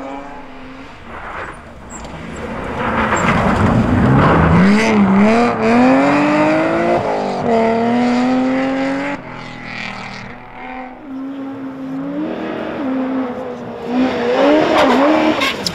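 Rally cars passing at speed on a snow stage, engines revving hard and rising and falling in pitch through gear changes. The loudest pass comes about four to six seconds in, and another car comes through near the end.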